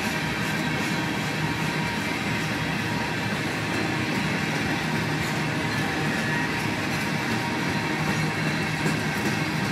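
Freight train of Herzog ballast cars rolling steadily past, with the even noise of steel wheels on rail and faint irregular clicks.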